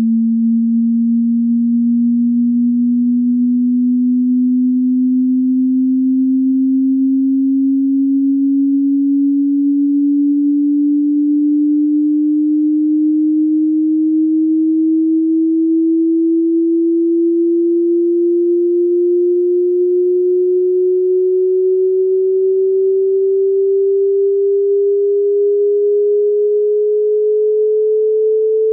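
Pure sine test tone from a hearing-test frequency sweep: one steady, clean, low tone rising slowly and evenly in pitch.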